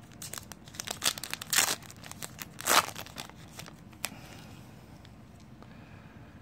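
Plastic trading-card pack wrapper crinkling and tearing as cards are handled: a run of crackles over the first three seconds, loudest twice in the middle, and a single sharp click about four seconds in.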